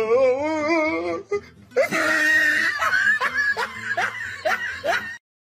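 A person laughing in short repeated bursts, after a drawn-out call with a wavering pitch in the first second. The sound cuts off suddenly near the end.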